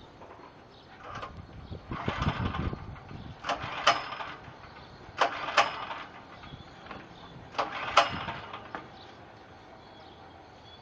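Electric welding arc crackling in about five short bursts, each under a second long with sharp pops, as a nut is tack-welded onto a broken bolt stud.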